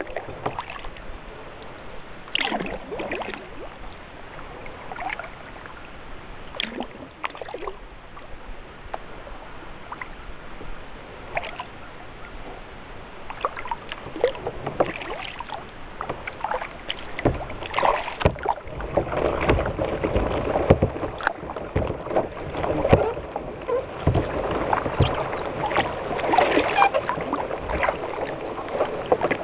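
Kayak paddle strokes: the blade dipping in, water splashing and dripping off it in irregular bursts, sparse at first and busier and louder in the second half.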